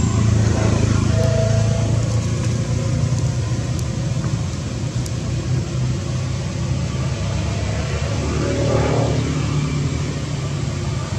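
Steady low engine rumble, as of a motor vehicle running nearby.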